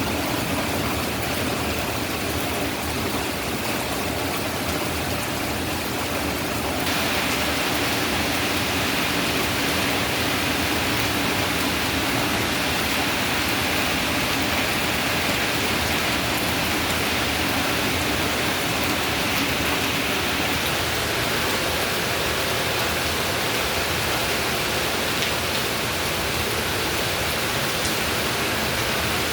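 Steady rain falling, an even hiss with no separate drops standing out. It gets slightly louder and brighter about seven seconds in.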